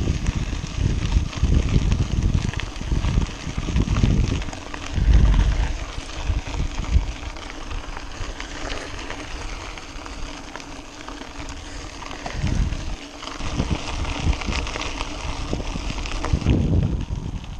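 Wind buffeting the microphone in gusts, over the crackling crunch and rattle of bicycle tyres rolling along a gravel track.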